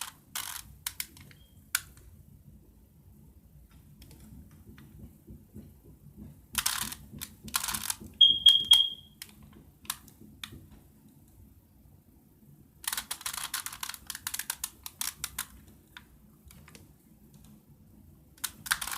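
Rubik's cube being turned by hand: bursts of rapid plastic clicking and clacking as layers are twisted, with pauses between. A short high tone sounds about eight seconds in.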